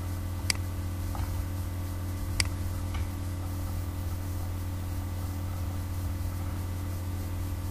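Two sharp computer mouse clicks about two seconds apart, with a couple of fainter clicks, over a steady low electrical hum.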